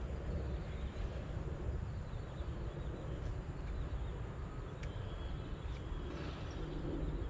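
Outdoor ambience: a steady low rumble with a few faint high chirps in the middle.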